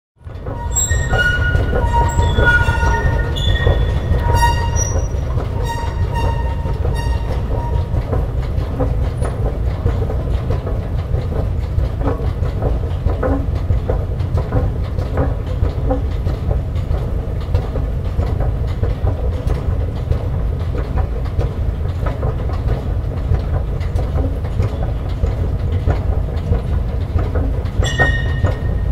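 Escalator running with a steady low rumble. Its mechanism gives a string of high squeaks through the first several seconds and squeaks again near the end.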